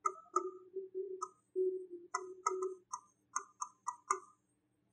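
A pen writing on a blackboard: a run of about ten short taps and squeaky strokes as letters are written out.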